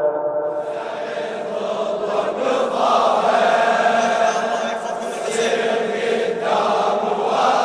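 A large crowd of male mourners chanting a Shia latmiya refrain in unison, many voices together.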